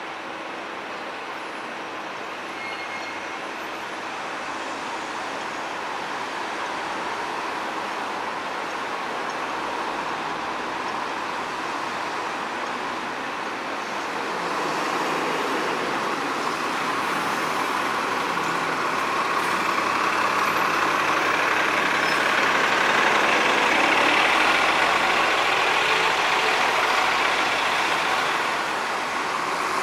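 City road traffic: a steady wash of engine and tyre noise that grows slowly louder, peaking about three-quarters of the way through before easing a little.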